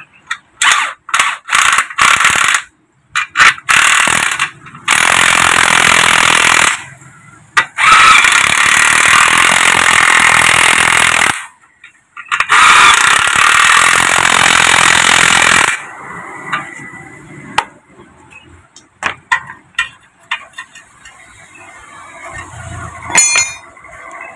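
Cordless impact wrench hammering on a Honda Vario scooter's exhaust mounting bolts: many short bursts, then three longer runs of a few seconds each, stopping about 16 seconds in. After that come only scattered clicks and clinks of tools.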